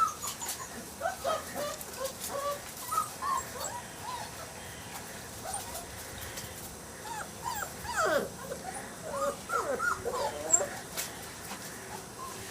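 Young mastiff puppies whimpering and whining in short high calls, scattered at first and then many at once about eight seconds in.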